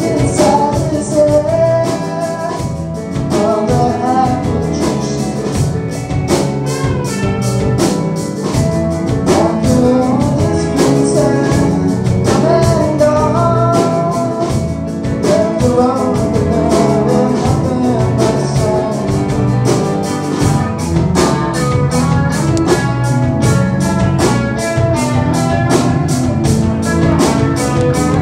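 A live indie rock band playing: electric guitars over a drum kit keeping a steady, fast beat, with a sung or melodic line above.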